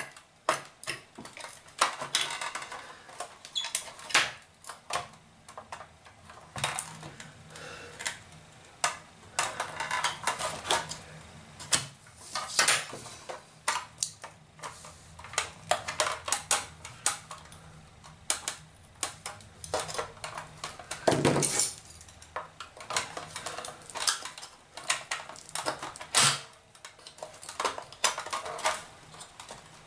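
Small screwdriver blade scraping, clicking and clinking against the corroded metal battery contacts and plastic walls of a toy's battery compartment, prying the contacts out. The clicks and scrapes come irregularly, with a louder knock about twenty-one seconds in and another about twenty-six seconds in.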